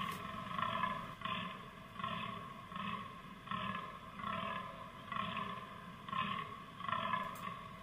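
Fallow deer buck groaning in the rut: a steady series of short, deep groans, about one every three-quarters of a second.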